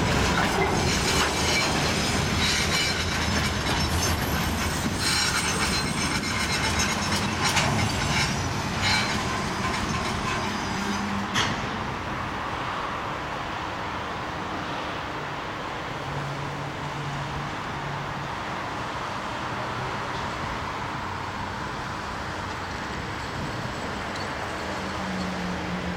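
Freight train of open gondola wagons rolling past: wheels clacking over rail joints with high wheel squeal for the first half, then about halfway through the sound drops to a quieter, duller steady rumble of the wagons rolling by.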